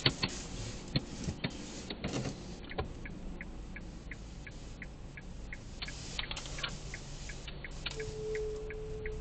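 Hyundai Solaris turning left at parking speed: a steady squeak about a second long near the end, the unexplained squeak the owner is tracking down. A regular ticking runs about two and a half times a second from about three seconds in, and a few knocks come in the first three seconds.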